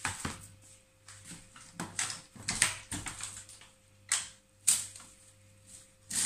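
Plastic bag being handled to cover a bowl, crinkling and rustling in irregular short bursts with a few sharper clicks.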